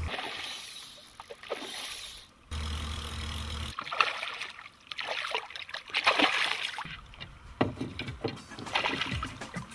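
Water splashing in short, irregular bursts. A low wind rumble on the microphone comes in about a third of the way through.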